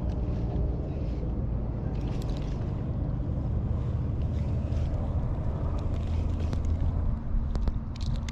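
Wind buffeting the microphone, a steady low rumble, with a few faint clicks of handling.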